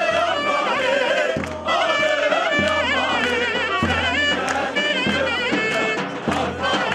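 Turkish folk dance music for a halay: a shrill, ornamented reed-pipe melody over steady deep drum beats, typical of davul and zurna.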